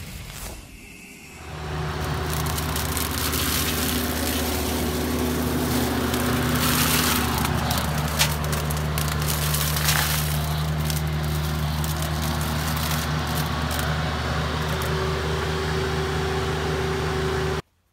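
Compact excavator's diesel engine running steadily under load while its hydraulic flail mower spins, with crackling bursts as the flails shred grass and brush. It starts after about a second and a half and cuts off abruptly near the end.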